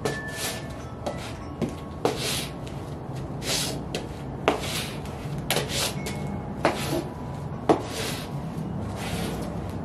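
UGG-style boots stepping and tapping on a concrete floor: about six sharp, irregular taps of the soles mixed with short gritty scuffs and scrapes as the feet slide and pivot.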